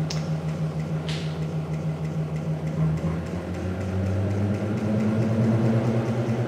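Pulsed DC stepper motor test rig running with a steady electric hum. About three seconds in, as its input power is raised, the hum drops in pitch and grows louder with a pulsing beat. Two light clicks about a second apart sound near the start.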